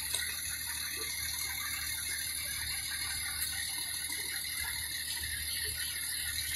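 Steady low hum under a hiss, consistent with a fire engine's diesel engine running at the scene, with a couple of faint clicks.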